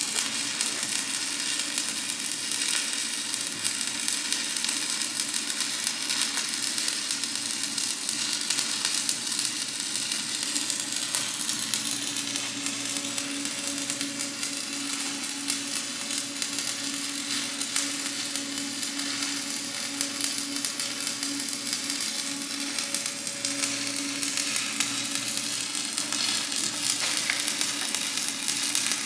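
Stick (shielded metal arc) welding with a 7018 electrode, laying the final passes on a steel truck frame rail: the arc crackles steadily without a break. A faint low hum runs under it through the middle.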